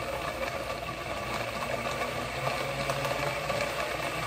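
Countertop blender motor running at a steady high speed, blending a liquid vinaigrette of olive oil, vinegar and jam.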